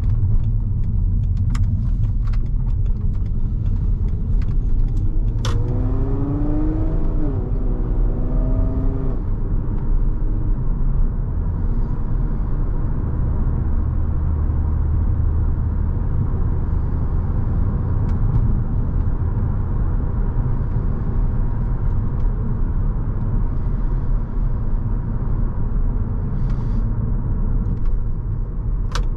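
3.2-litre VR6 engine and cat-deleted exhaust of a 2006 Volkswagen Passat running under way at an easy pace, a steady low rumble. About six seconds in the revs climb, dip once and climb again, then it settles back to a steady drone. A few sharp ticks sound in the first five seconds.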